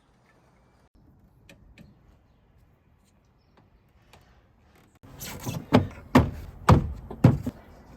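About five seconds of faint clicks, then five sharp knocks roughly half a second apart.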